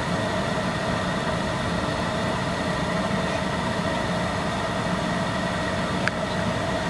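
2013 Ford Explorer's HVAC blower fan running steadily, a constant rush of air through the vents set to foot-and-face mode. A single short click about six seconds in.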